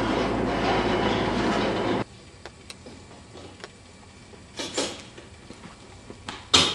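A steady, loud rushing rumble that cuts off abruptly about two seconds in. After it, quiet with faint clicks and two short rushes of noise, the second and louder one near the end.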